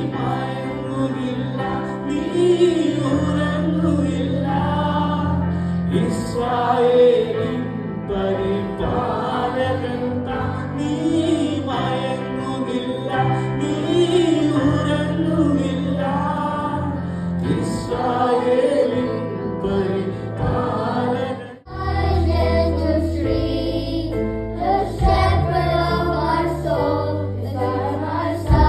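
Worship music: voices singing together over instrumental backing with sustained bass notes. About three quarters of the way through it cuts out for a moment and a new passage with heavier bass starts.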